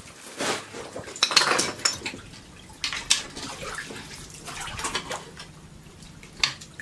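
Shallow water splashing and sloshing as a hand landing net is swept and scooped through it, broken by a few sharp clinks and knocks.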